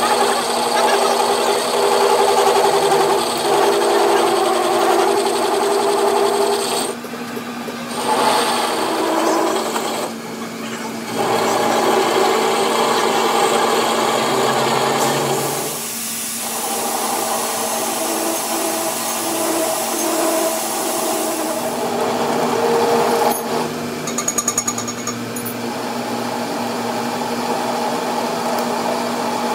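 Metal lathe running as a carbide tool turns and chamfers the end of a metal shaft: a steady machine hum and whine under the scraping hiss of the cut. The sound dips briefly a few times.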